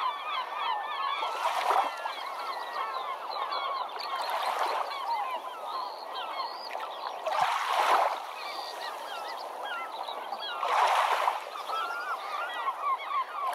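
A large flock of birds calling over one another without a break. A rush of noise swells about every three seconds, as waves wash in on the shore.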